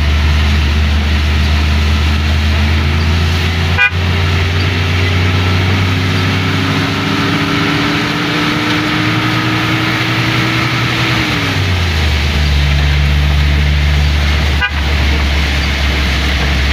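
Inside the cab of an old Mitsubishi Colt T120 driving on a rain-soaked road: a steady low engine drone with a constant hiss of rain and wet tyres. The engine note climbs slowly, then drops away about two-thirds of the way through, as when the driver lifts off or changes gear.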